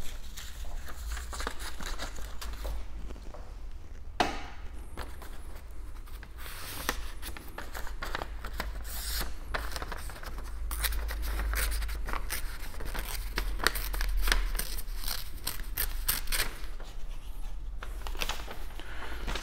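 A sheet of graph paper being cut and handled, with irregular snips, tearing and crinkling rustles.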